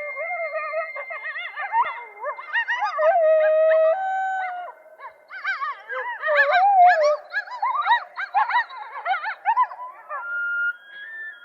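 A pack of coyotes howling and yipping together: several long held howls overlap with quick rising-and-falling yips. The yipping is busiest in the second half, and it ends on one held howl.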